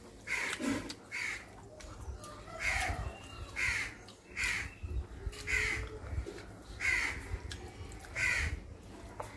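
A crow cawing repeatedly, about eight calls roughly a second apart.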